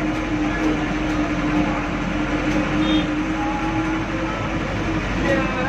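Cabin noise of a 1996 Mitsubishi 120 PS diesel city bus under way: steady engine and road rumble, heard from inside the bus.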